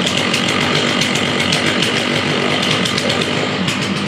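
Stihl MS660 two-stroke chainsaw engine idling steadily, warming up just after a cold start.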